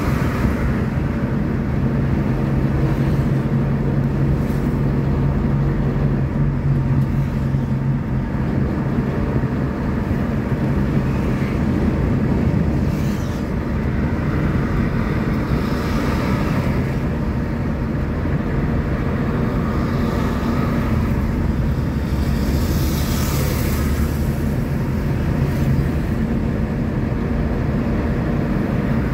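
Steady engine and road noise of a moving road vehicle, running at cruising speed along a highway. It has a low hum and a few brief swells of higher hiss.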